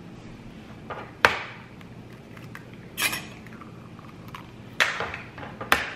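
Eggs knocked against the rim of a stainless steel mixing bowl to crack them: four sharp taps, one to two seconds apart.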